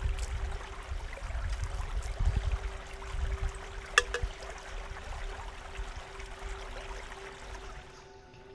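Outdoor background noise with a low rumble and a faint steady hum, and one sharp click about four seconds in; it grows quieter near the end.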